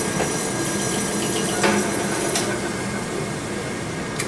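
Drill press running with a 9/16-inch Roto-Cut hole cutter boring through the plastic calf section of an AFO: a steady machine hum under cutting noise, with a few sharp clicks and knocks.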